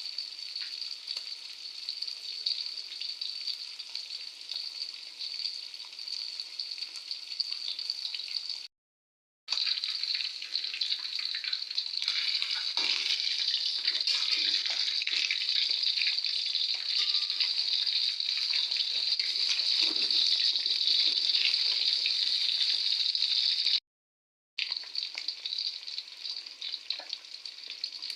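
Small tilapia frying in hot oil: a steady, crackling sizzle, louder through the middle stretch. The sound cuts out completely twice for under a second, about nine seconds in and about twenty-four seconds in.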